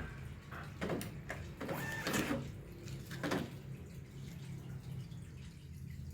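Bank queue-number ticket machine working: a short beep and a few brief bursts of its ticket printer over a steady low hum.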